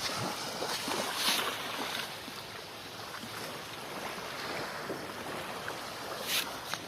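Small waves washing on a beach, a steady hiss that swells about a second in and again near the end, with wind on the microphone.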